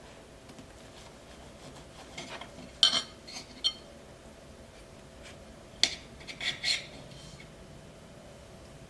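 Cutlery clinking against a plate in two short clusters of sharp, ringing taps, about three seconds in and again about six seconds in.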